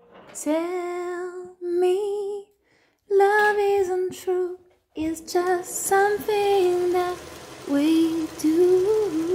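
Background song: a woman's voice singing a gentle melody in short phrases, with brief pauses between them.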